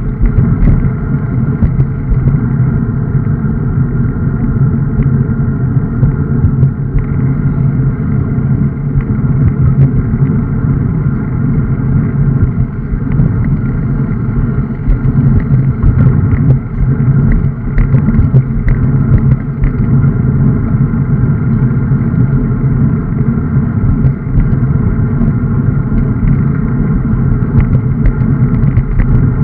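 Wind rushing over the microphone of a camera riding on a road bike, a loud, steady low rumble, with road and tyre noise and scattered short clicks and knocks from the bike.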